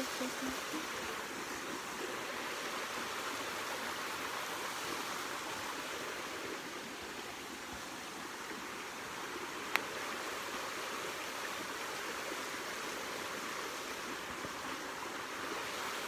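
Steady rush of flowing stream water, with a single sharp click about ten seconds in.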